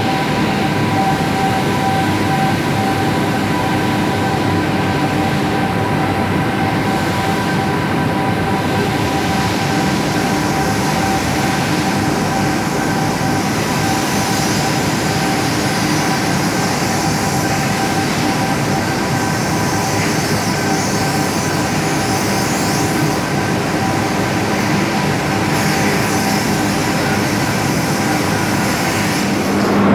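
Overhead ladle crane in a steel-plant bay running: a steady, dense mechanical noise with several constant high whining tones over it.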